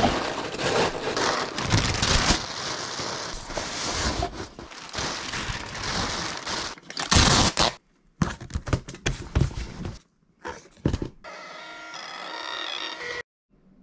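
Packing paper being crumpled and stuffed into a cardboard box, loud crinkling and rustling for about seven seconds, followed by a few seconds of scattered clicks and handling. Near the end a Dymo LabelWriter 450 Turbo label printer feeds out a shipping label with a steady motor whine for about two seconds, cutting off suddenly.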